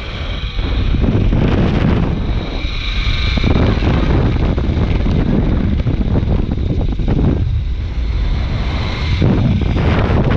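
Strong wind buffeting the microphone: a loud, rumbling roar that changes abruptly several times.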